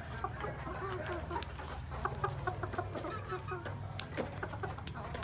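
Chickens clucking in many short, quick calls over a steady low hum, with two sharp clicks near the end.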